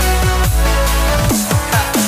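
Electronic music with a heavy bass line and a beat, with synth notes that repeatedly slide down in pitch; the deep bass drops out briefly near the end.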